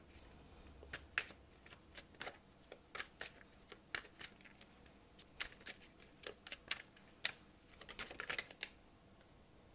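Tarot cards being handled: a string of light, irregular card snaps and flicks as the deck is worked and cards are drawn and laid down, coming thickest near the end.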